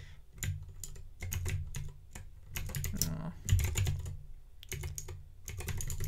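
Typing on a Levinson mechanical keyboard with clicky Gateron Blue switches: sharp keystroke clicks in short quick runs with brief pauses between them.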